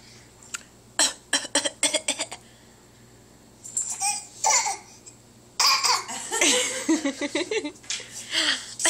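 A baby's fake coughs, a quick run of short coughs about a second in, followed by laughter and giggling.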